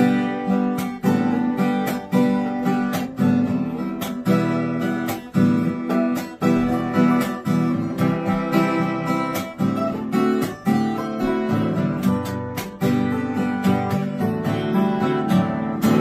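Strummed acoustic guitar playing chords in a steady rhythm, with no singing.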